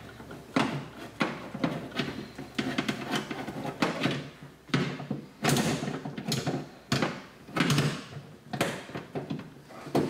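Metal window regulator and motor assembly knocking and scraping against the sheet metal inside a 2006 Chevy Impala's rear door as it is worked into place over its bolts: a string of irregular clunks and rattles.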